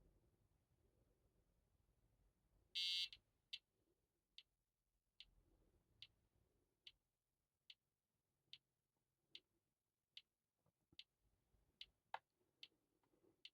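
Faint, evenly spaced floppy-drive ticks, a little over one a second, played by the Gotek drive's built-in speaker, which mirrors the noises of a mechanical Amiga drive. A short loud buzz about three seconds in comes before the ticks start.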